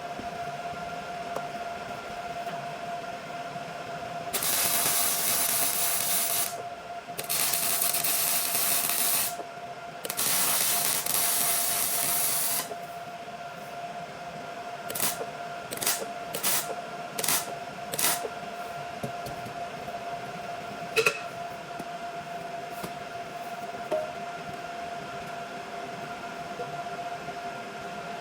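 Arc welding: three welds of about two seconds each with short pauses between, then a quick run of short tack-like bursts.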